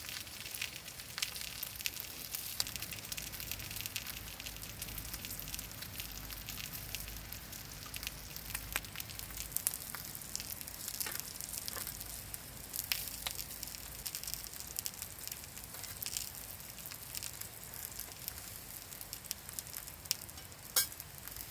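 Ham steak sizzling in a pan over a wood campfire: a steady frying hiss with many small crackles and one sharper pop near the end.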